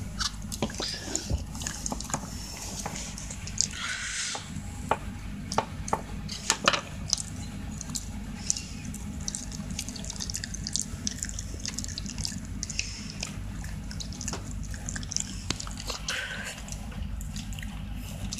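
Shiba Inu chewing and licking at a dog chew stick: irregular wet smacking and clicking mouth sounds.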